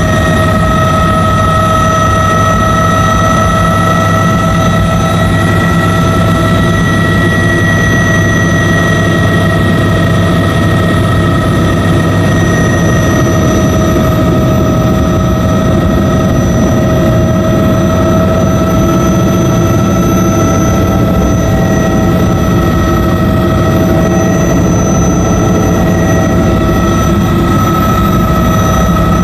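Bell 206B JetRanger helicopter in flight, its Allison 250 turboshaft engine and rotor system running at a steady cruise. A loud, constant drone, with several unchanging high whining tones from the turbine and gearbox over a low rumble.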